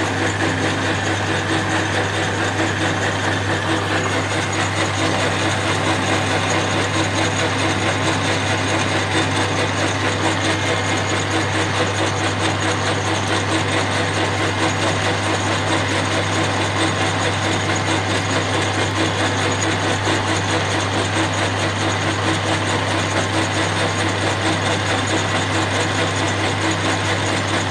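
Small metal lathe running steadily with a low hum, its cutting tool taking light cuts to turn down an old cap screw.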